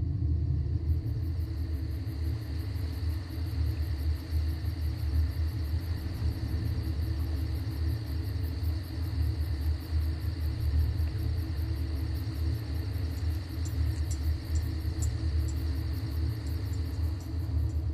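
Steady low rumble with a faint, thin high tone held above it.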